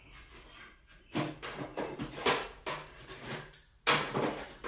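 Small steel nuts and bolts rattling and clinking as they are handled and sorted by size, in four short bursts, the last the loudest.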